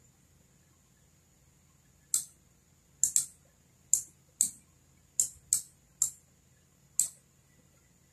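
Computer mouse button clicking about nine times at an irregular pace, some clicks in quick pairs.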